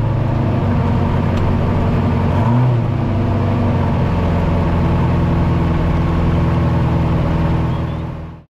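Off-road race truck's engine running at low speed, heard from inside the cab, with a brief blip of revs about two and a half seconds in. The sound fades out near the end.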